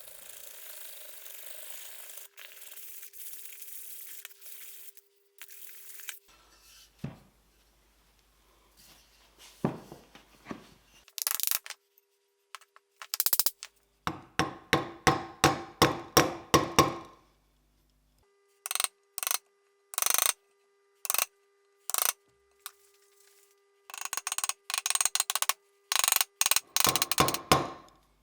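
Blacksmith's hammer blows on steel, in quick runs of about three strikes a second. These come after a few seconds of steady scraping or grinding noise on metal, with abrupt edit cuts between the segments.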